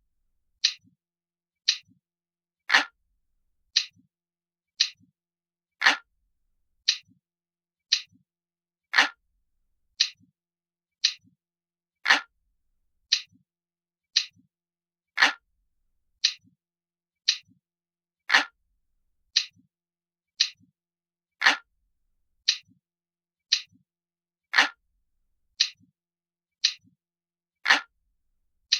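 Looped recording of an analog clock ticking steadily, about one tick a second, with every third tick heavier and lower than the two between.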